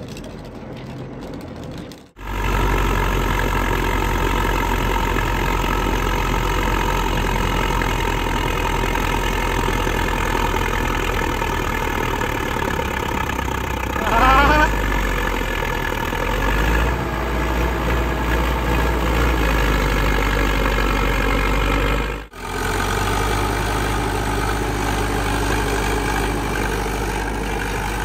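Tractor diesel engine running steadily, heard in three stretches separated by abrupt cuts about two seconds in and just past twenty-two seconds. A short rising tone rises over it about fourteen seconds in.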